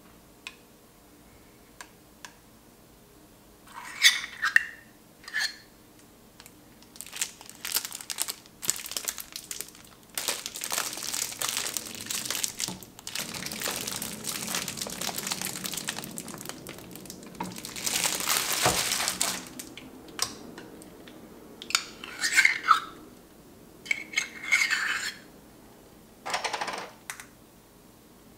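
A metal spoon clinking and scraping against a stainless measuring cup and a glass mixing bowl as Dijon mustard is scooped out. In the middle comes a long stretch of scraping and squeezing noise while mayonnaise is squeezed from a squeeze bottle, then a few more ringing clinks near the end.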